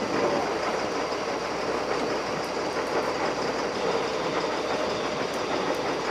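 A fishing boat's engine running steadily, mixed with the rush of water along the hull, making a constant rumble and hiss.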